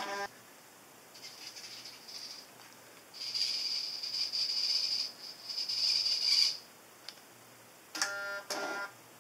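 Servo motors of a 3D-printed robot arm whirring as the arm lifts its claw upward, a high whir lasting about three seconds, followed by two short buzzes near the end.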